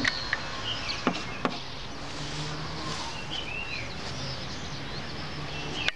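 A few sharp taps of chalk on a blackboard in the first second and a half as a sign is written, then a steady background hum with a few faint high chirps, like distant birds.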